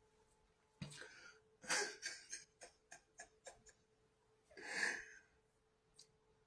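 A man's faint breaths and exhales close to the microphone, three soft puffs about a second, two seconds and five seconds in, with a run of small mouth clicks between. A faint steady hum lies underneath.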